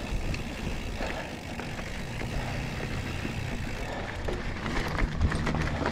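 Mountain bike rolling over a dirt and rock trail: a steady rush of knobby tyres on the ground with a low hum, and short knocks and rattles of the bike over bumps toward the end.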